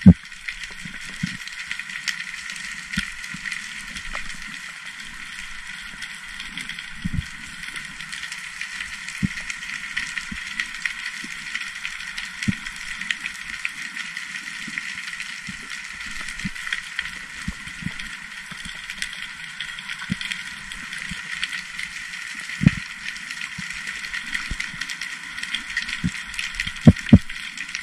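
Underwater ambience picked up by a camera in its housing: a steady crackling hiss with scattered dull knocks, the loudest of them near the end.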